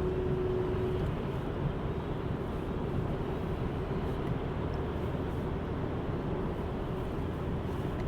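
Steady road and engine noise of a car driving along, heard from inside the cabin, with a faint steady hum in the first second.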